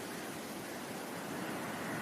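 Ocean surf as steady white noise, an even hiss of washing waves that swells slightly toward the end.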